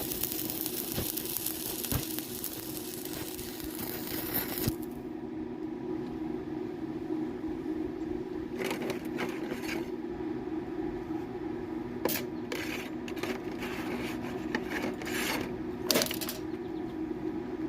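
Steady machine hum; a loud hiss cuts off about five seconds in, and is followed by scattered metallic clinks and scrapes.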